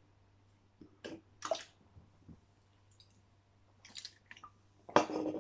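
A few faint, short wet clicks and smacks, spaced apart, with a louder one near the end.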